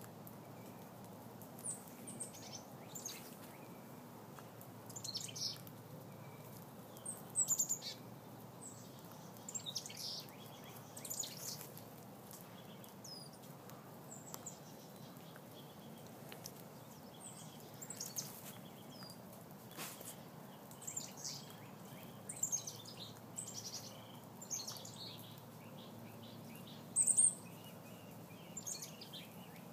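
Small wild birds chirping: short, high-pitched calls every second or two, with the loudest near the end, over a steady outdoor hiss.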